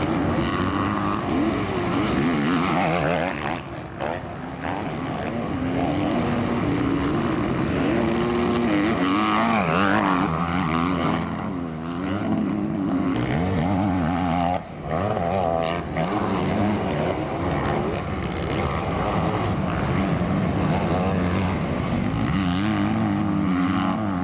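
Several motocross bikes racing, their engines revving up and down in pitch as they accelerate and shift, with brief drops where the sound cuts.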